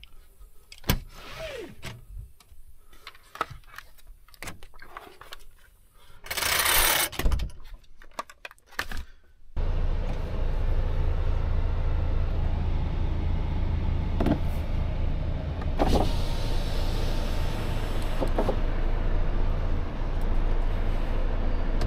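Scattered clicks and knocks and a hiss lasting about a second, then, about ten seconds in, a steady low drone of the Volvo FH truck's diesel engine running comes in suddenly and holds, with a few more clicks.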